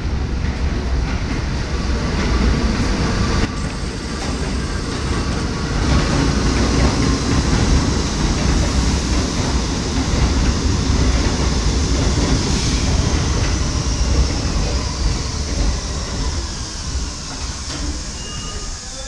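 R68/R68A subway train running along elevated tracks: a loud, steady rumble and rattle of wheels on rail. A faint whine falls in pitch in the second half, and the noise eases toward the end.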